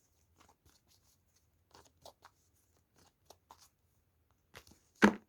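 Tarot cards being handled and laid out on a table: scattered soft clicks and rustles of card stock, with one louder, sharper tap just after five seconds in.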